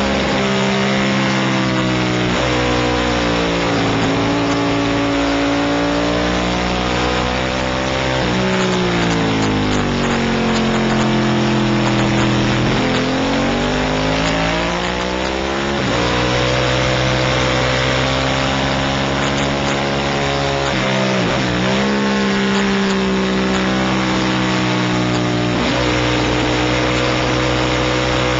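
750 Superbike-class racing motorcycle engine heard from an onboard camera, revving hard and climbing in pitch through the gears with sudden drops at each upshift, then falling away under braking and downshifts before pulling again out of the corners. Wind rush over the microphone runs underneath.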